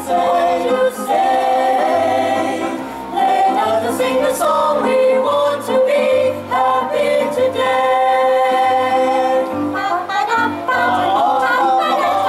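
Mixed choir of men's and women's voices singing in harmony, holding and shifting chords.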